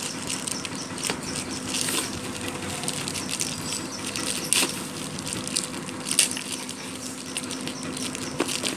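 Plastic courier mailer bag rustling and crinkling as hands pull at it and open it, with sharp crackles every second or two. A steady low hum underneath.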